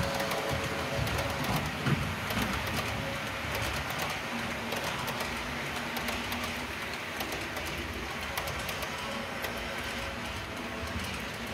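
Model train running on layout track: a steady rolling rumble with rapid, irregular clicking of wheels over the rails and joints as a long passenger train passes.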